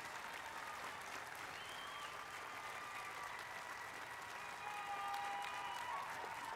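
Faint, steady audience applause, with a few voices or whistles rising over it.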